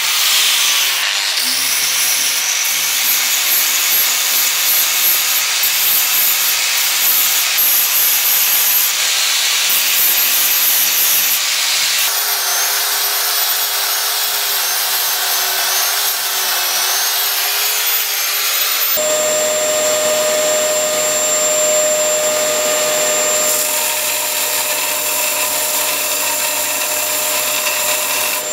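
An angle grinder cutting metal. About twelve seconds in it gives way to a narrow power belt file running, and from about nineteen seconds a belt sander runs with a steady motor hum while wood is sanded on its belt.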